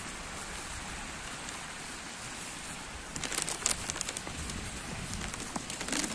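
Steady hiss of a wet street: rain and tyres on wet asphalt as a trolleybus goes by. About halfway through, irregular sharp taps and clicks of footsteps on wet pavement begin over the hiss.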